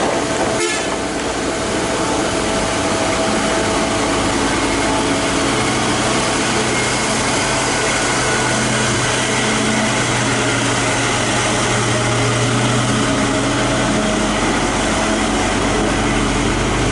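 Truck engine running steadily, a continuous drone that grows stronger through the middle stretch, with a brief break less than a second in.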